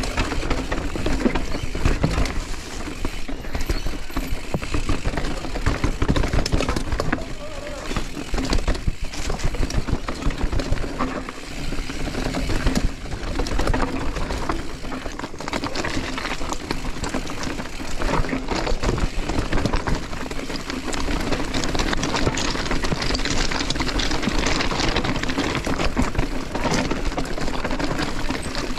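Mountain bike riding down a rough trail: a constant rumble and rattle of tyres and bike over dirt and rock, broken by many sharp knocks from bumps.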